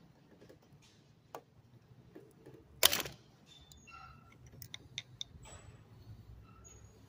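Flat-blade screwdriver prying a floating rocker arm off its valve and lash adjuster in a Toyota 2GR-FE cylinder head: light metal clicks, then one sharp metallic snap about three seconds in. After the snap come scattered small clicks and brief metallic pings.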